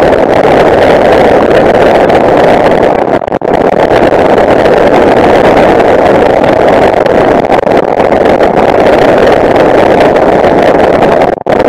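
Steady loud roar of engine and rushing air in the open cockpit of a Tanarg flexwing microlight in flight, briefly dipping about three seconds in and again near the end.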